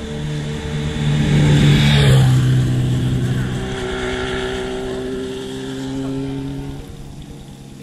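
Motorcycle engine running under way, heard from the rider's own bike, with a rush of wind and road noise that swells to its loudest about two seconds in; the engine note shifts slightly partway through, and the sound drops in level near the end.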